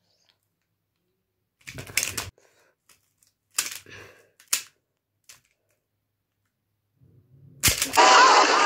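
A plastic Rubik's cube being turned by hand: a few short bursts of clicking as its layers rotate. Near the end, a sudden loud explosion sound effect breaks in and is the loudest thing.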